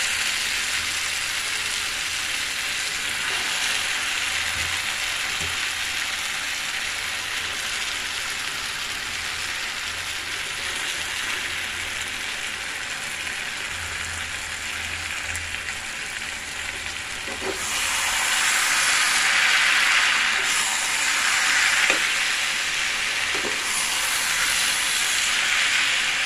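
Boiled cabbage, potatoes, peas and fried fish head sizzling in a frying pan with oil and being turned with a metal spatula. The sizzle is steady at first, then gets louder about two-thirds of the way in, swelling in waves as the pan is stirred.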